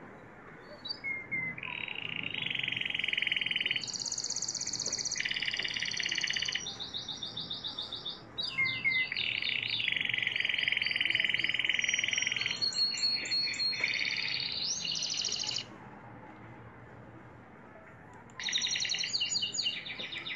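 Domestic canary singing: a long, high-pitched song made of rapid trilled phrases, each a fast run of one repeated note, switching from phrase to phrase for about fifteen seconds, then a pause and another short trilled burst near the end.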